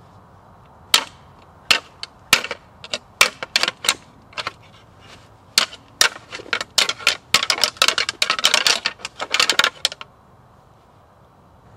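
Hard objects clacking together: scattered sharp clacks, then a fast rattling flurry that stops suddenly near the end.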